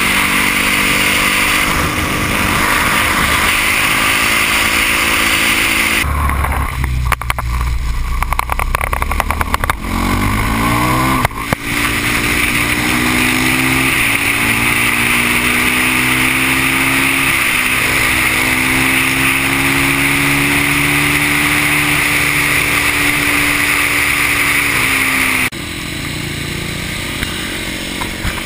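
Supermoto motorcycle engine running at speed under heavy wind noise on the camera, the engine note holding fairly steady. About a third of the way in there is a few seconds of heavy low rumble, then the engine revs up and carries on, and near the end the sound drops suddenly to a quieter level.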